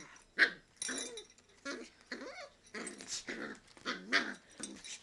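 Two beagles, an adult and a two-month-old puppy, play-fighting: a quick string of short play growls and yips.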